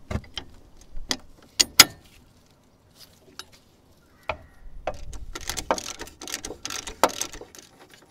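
Metal hand tools clicking and clattering on the steering-knuckle pinch bolt as it is undone with a 15 mm socket and breaker bar. There are separate sharp clicks, the loudest just before two seconds in, then a denser run of clicking and rattling from about five seconds.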